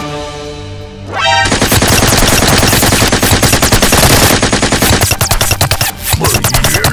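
Rapid automatic gunfire, a dense unbroken volley of shots that starts about a second and a half in after a short rising sweep, laid over background music.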